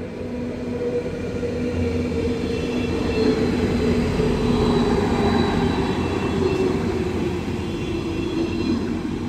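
Arriva passenger train passing the level crossing at close range, swelling to its loudest about halfway through, with a thin wheel squeal in the middle of the pass. Mechanical crossing bells keep ringing under the train.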